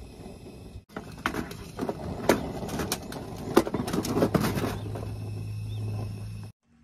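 Thin aluminium panels of a folding stove windscreen clattering and clicking against each other as the screen is unfolded and stood around a portable gas stove, with a run of sharp metallic clicks for the first few seconds. A steady low hum comes in about two thirds of the way through.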